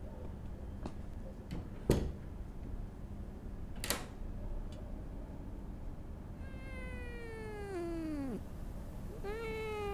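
A sharp click about two seconds in and a fainter one two seconds later, then a cat yowling: one long meow that slides down in pitch, and a second one starting near the end.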